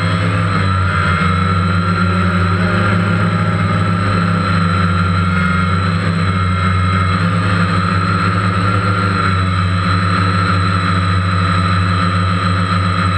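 DJI Phantom quadcopter's electric motors and propellers in steady flight: a constant high whine over a deep hum, heard up close from the GoPro camera mounted on the drone.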